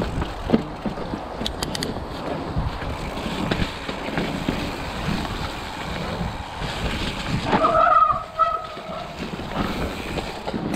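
Riding a 29er hardtail mountain bike on a forest dirt trail: tyres rolling, the bike rattling and knocking over roots and bumps, and wind on the microphone. A short squeal comes about three-quarters of the way through.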